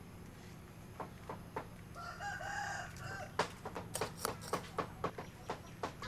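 A rooster crows once, briefly, about two seconds in. After it comes a quick run of sharp clinks and scrapes as a metal spoon works in ceramic bowls, scooping out fried garlic and seasoning.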